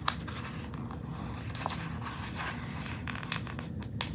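Paper being handled on a planner page: soft scratching with a few small sharp clicks and taps, over a steady low hum.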